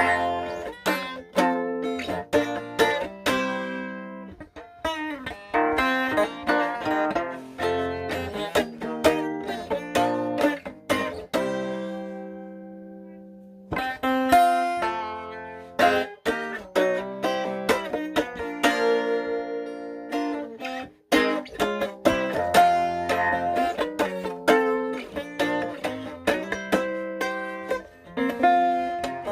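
Guitar played solo in a slow blues, single notes and chords picked and left to ring. About halfway through a chord is held and fades away before the picking starts again.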